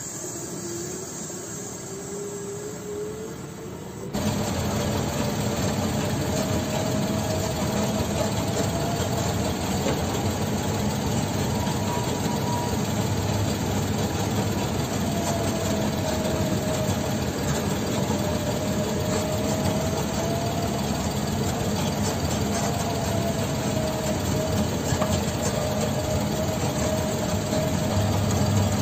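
A diesel engine working with its pitch rising while a wheel loader tips stone into a dump truck. About four seconds in, it gives way to the louder, steady drone of the dump truck's engine heard from inside the cab while driving a dirt track, with a faint whine that drifts up and down.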